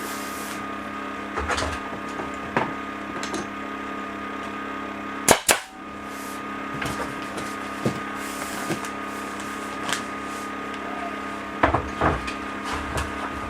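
Staple gun firing a staple into a lauan ceiling panel: one sharp, loud shot about five seconds in, with lighter knocks and clicks of panel handling around it, over a steady machine hum.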